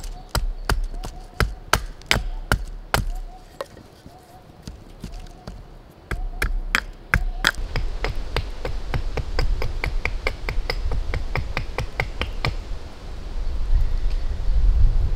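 A knife chopping into a piece of wood in sharp knocks, then after a lull a faster run of lighter knife-on-wood clicks, about five a second. A low rumble builds near the end.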